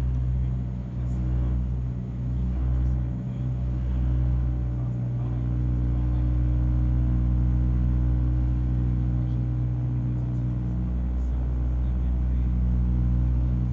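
Cabin noise of a de Havilland Dash 8-100 turboprop in flight: the engines and propellers make a steady low drone with several held tones, heard from a seat beside the engine.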